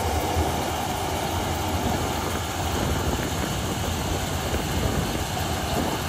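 New Holland 8070 combine harvester harvesting wheat, its engine and machinery running steadily in a dense mechanical din with a strong low hum.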